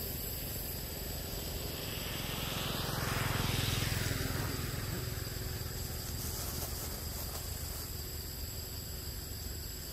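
Forest ambience with a steady high-pitched insect drone, and a low rumble that swells and fades about three to four seconds in.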